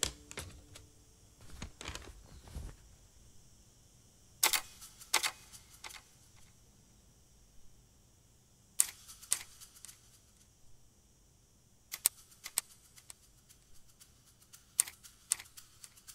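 Vintage manual typewriter: a few soft thuds and rattles in the first seconds as a sheet of paper is fed in, then hesitant keystrokes, sharp clicks singly or in twos and threes with pauses of a few seconds between them.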